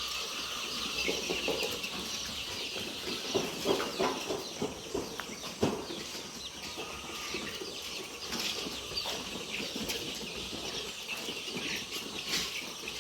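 A large flock of four-week-old Bovans Brown chicks peeping and clucking together in a continuous chatter, with a few short knocks and flutters in among it.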